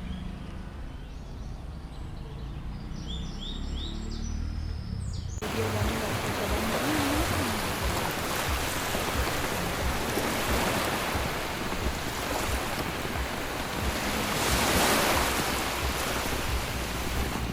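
A few short bird chirps over a low rumble, then, after an abrupt change about five seconds in, a loud steady rush of running water.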